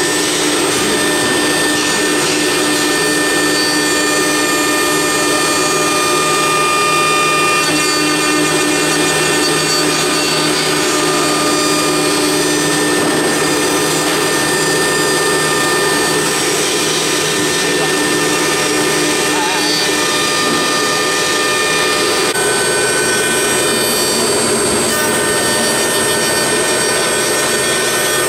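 CNC router spindle milling a wooden column turning on the rotary axis: a steady high whine over the hiss and rasp of the cutter in the wood. About two-thirds of the way in, the mix of whining tones shifts as the cut changes.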